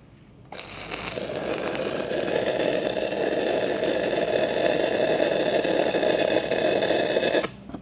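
Stick-welding arc burning a tack weld on a pipe joint with a 6010 electrode. It is a steady hiss that starts about half a second in, builds over the first couple of seconds and cuts off sharply near the end as the arc is broken.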